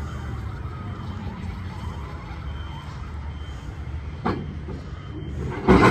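Zephir road-rail railcar mover's engine running steadily as it moves a diesel locomotive slowly across a street crossing. A sharp knock comes about four seconds in, and a louder bang just before the end.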